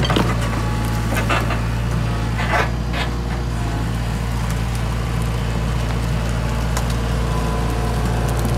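Mini excavator's diesel engine running steadily as the machine tracks forward on its newly refitted, grease-tensioned track chains, with a few sharp clanks in the first three seconds.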